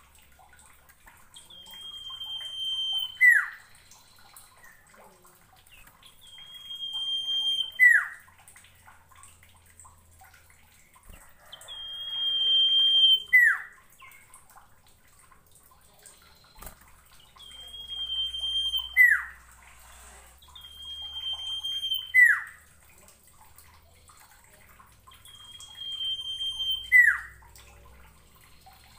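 Common iora singing its song six times. Each phrase is a long, steady, high whistle that swells in loudness, then breaks into a quick falling note.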